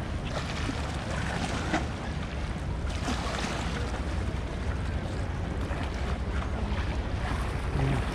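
Harbourside ambience: steady wind buffeting the microphone over a low rumble, with a faint wash of sea.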